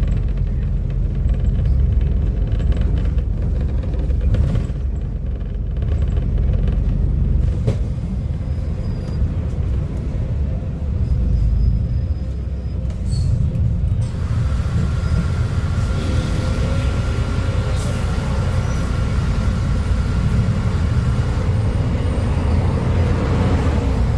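Volvo B250RLE city bus diesel engine running with a steady low rumble. About halfway through the sound gets fuller and a faint steady whine sets in for several seconds.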